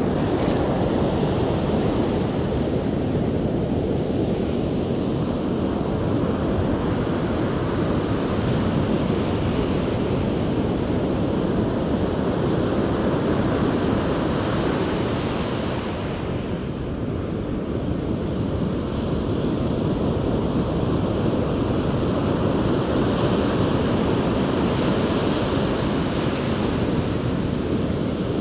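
Surf breaking and washing up a sandy beach, a steady rush that eases for a moment just past halfway, with wind buffeting the microphone.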